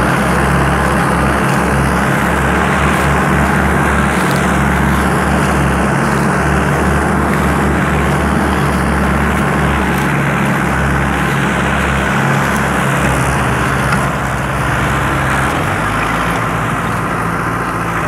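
Two Mahindra Arjun 555 diesel tractors hitched in tandem, running steadily under heavy load as they pull one two-bottom mouldboard plough for deep ploughing. The engine sound eases slightly about three-quarters of the way through.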